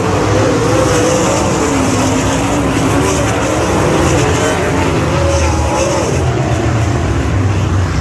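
Several winged sprint car engines racing on a dirt oval at full throttle, loud, their pitch rising and falling as the cars lift and get back on the gas through the turns.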